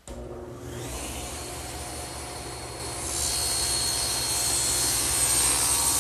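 Table saw running with its blade tilted for a bevel cut. About three seconds in the blade starts cutting through a wooden blank, knocking off a corner, and the sound turns louder and hissier with a high steady whine.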